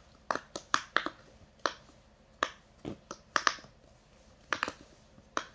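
Silicone push-pop bubble fidget toy being popped by a child's fingers from its loud side: about a dozen sharp pops at uneven intervals, some in quick pairs.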